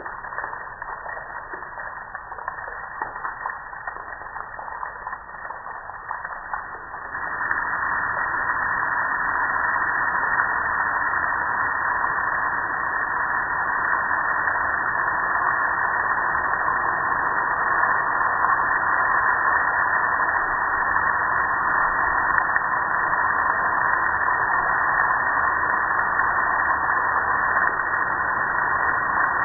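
Water from a hose spray nozzle jetting over a gas grill and spattering on its metal body, a steady hiss. The spray gets louder about seven seconds in and then holds steady.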